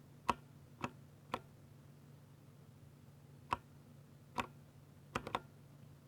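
Keystrokes on a Ducky 60% mechanical keyboard with silver linear switches (Cherry MX Speed Silver): about eight sharp, separate key presses, slow and irregular, with three in a quick run near the end.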